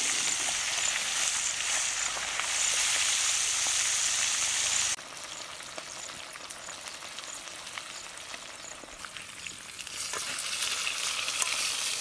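Pomfret fish pieces deep-frying in hot oil in an iron kadai, a steady sizzle. It is loud at first, drops suddenly to a softer sizzle about five seconds in, and swells again near the end.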